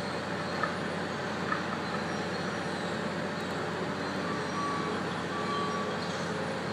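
Heavy road-construction machinery running steadily, with two short high beeps around the middle.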